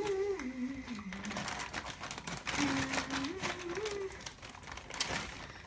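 Scissors snipping and cutting through a package, with sharp clicks and crinkling, while a child hums a few wordless notes twice.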